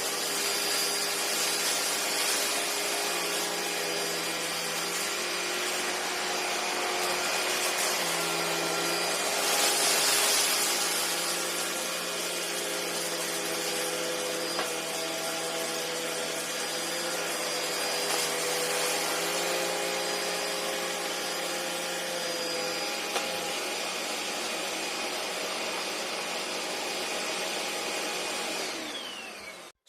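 Upright vacuum cleaner running steadily, its motor whine holding several tones that shift slightly in pitch as it works. A louder rush of airflow noise comes about ten seconds in. The sound starts and stops abruptly.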